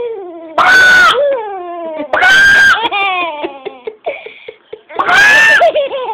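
A man's imitated chicken squawks, three loud shrill cries, with a baby laughing and squealing in between.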